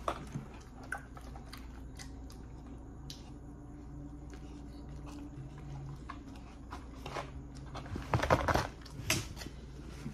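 A man chewing a Chicken Mac sandwich, with soft wet mouth clicks and a louder cluster of crunchy, crackling handling noise about eight seconds in, over a low steady hum.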